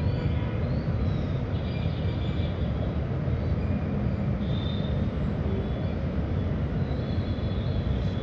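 Steady low rumble of outdoor background noise, with faint high chirps now and then.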